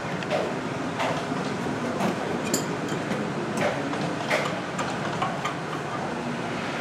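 Light irregular clicks and clinks of brass gas fittings and a steel adjustable wrench being handled: a plug threaded onto a shutoff valve by hand, then the wrench set on the fitting. A steady background noise runs under the clicks.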